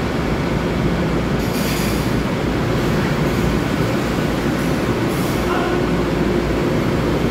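Long Island Rail Road M3 electric train cars passing close by as the train pulls out, a steady loud rumble of wheels on the track. Brief high-pitched hissing bursts come about a second and a half in and again about five seconds in.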